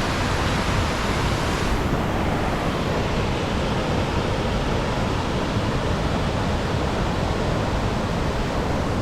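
Steady rush of the large Whitewater Falls waterfall pouring down, a constant loud hiss of falling water that dulls slightly in its highest tones about two seconds in.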